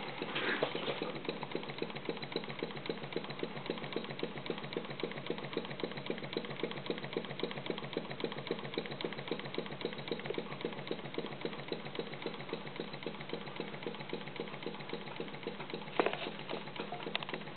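Single-cylinder model steam engine built from castings, running on compressed air with a rapid, even beat of exhaust puffs. A brief louder noise near the end.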